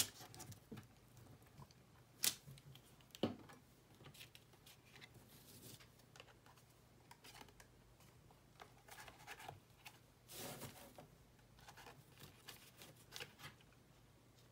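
Faint paper handling: a glue stick rubbed onto paper flaps, and the glued paper piece pressed down onto a card tag. A few sharp clicks and taps come in the first few seconds, and a longer patch of paper rustling about ten seconds in.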